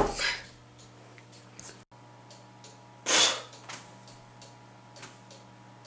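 A single short, sharp burst of breath from a person about three seconds in, with a few faint light ticks around it.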